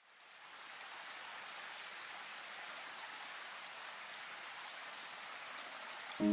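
A steady, rain-like hiss with faint scattered ticks, fading in over the first second. Music comes in right at the end.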